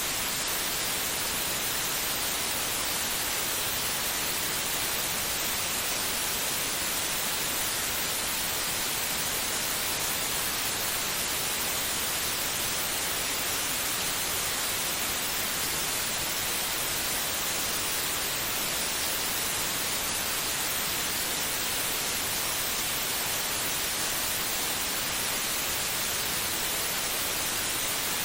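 Steady white noise: an even, unchanging hiss with no rhythm or heartbeat in it, used as a sleep sound to calm a baby.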